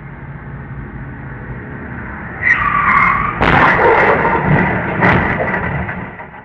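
Tyres screeching briefly, then a loud crash as a pickup truck and a car collide, followed by a second crunching impact about a second and a half later. A steady vehicle hum grows louder before the skid.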